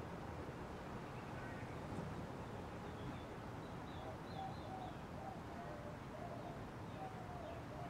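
Hunter Studio Series ceiling fan running steadily, with faint short chirps over it from about three seconds in.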